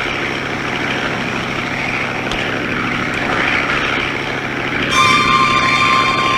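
Light propeller airplane engine droning steadily, heard as a continuous noise. About five seconds in, dramatic score music with held notes comes in over it.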